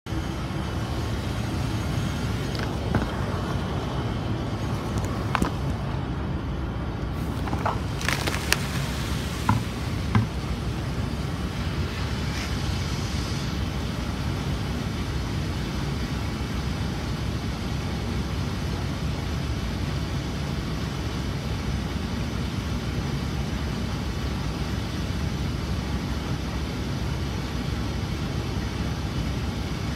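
Steady low rumble with a few sharp knocks and a brief hissing splash-like noise between about three and ten seconds in.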